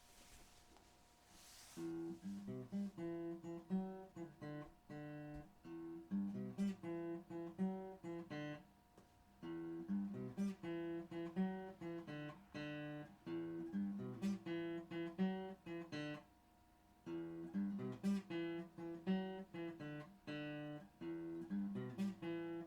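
Acoustic guitar music, plucked and strummed in a repeating pattern, starting about two seconds in with a couple of short breaks.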